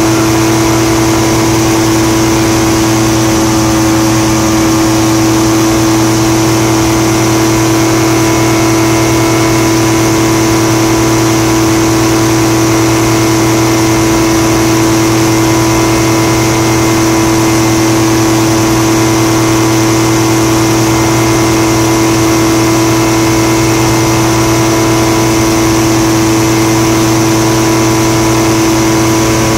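Fisher light aircraft's engine and propeller droning steadily at cruise power, heard from inside the cockpit. The pitch holds level throughout, over a hiss of rushing air.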